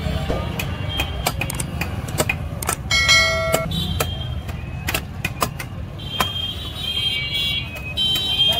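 Knife chopping through a large mrigal fish: irregular sharp knocks and cuts. A steady low engine rumble from traffic runs underneath, and a short horn sounds about three seconds in.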